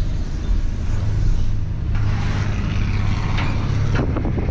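A motor vehicle's engine running with a steady low rumble, with a few short knocks about three and a half to four seconds in.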